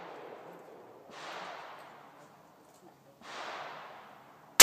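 Gunshots at a shooting range: two fainter, farther-off shots about a second in and just past three seconds, each trailing a long echoing decay, then a sharp, loud handgun shot close by right at the end.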